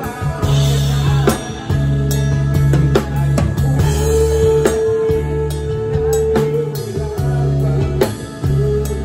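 A band playing live: a drum kit struck with sticks, snare and cymbal hits in a steady beat, over held low bass notes. A single higher note is held for a few seconds in the middle.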